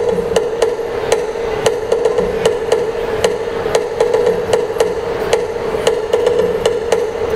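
Live percussion accompaniment with sharp, evenly spaced strikes, a few a second, over a steady ringing tone.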